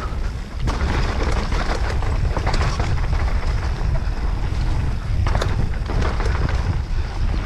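Wind rumbling on the microphone of a mountain biker riding a dirt bike-park trail, over steady tyre noise, with a few sharp knocks as the bike rattles over bumps.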